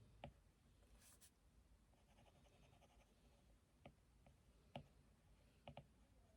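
Faint drawing sounds: a pen tip tapping the drawing surface a few times, including a quick double tap near the end, with a short scratchy stroke about a second in.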